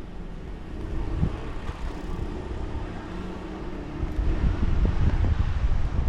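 A motor vehicle passing close by: a steady engine hum that gives way to a louder low rumble about four seconds in, with wind buffeting the microphone.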